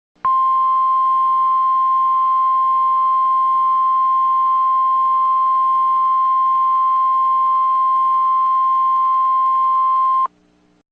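Emergency Alert System attention tone: one steady, single-pitched beep held for about ten seconds that cuts off abruptly near the end, with a faint low hum beneath it. It is the alarm that signals a warning message is about to be read.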